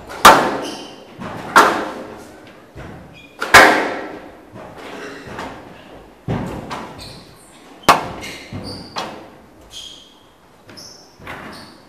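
Squash rally: the ball cracks off rackets and walls with a sharp hit every second or two, each one ringing in a large hall. Short high squeaks of court shoes on the floor come between the hits.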